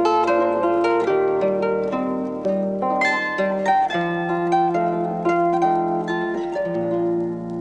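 Solo concert zither playing a traditional Alpine melody: plucked melody notes ringing over held bass notes.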